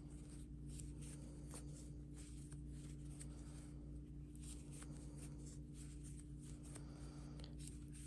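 Faint rustling and scratching of yarn being drawn through stitches with a crochet hook, as small irregular strokes over a steady low hum.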